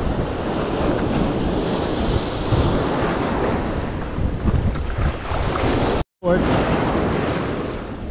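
Ocean surf washing in over a sand beach, with wind buffeting the microphone. The sound cuts out for an instant about six seconds in.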